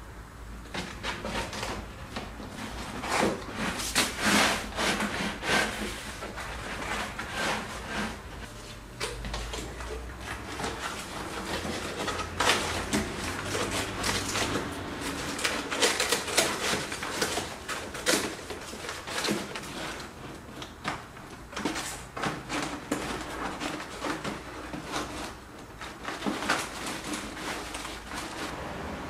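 Brown paper being handled in papier-mâché work: irregular rustling and crackling as glued strips are torn and pressed over the seams of a paper cast.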